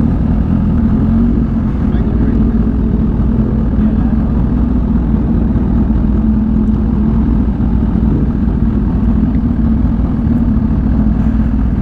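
Kawasaki Ninja H2's supercharged inline-four running steadily at low revs as the bike rolls slowly, with no revving.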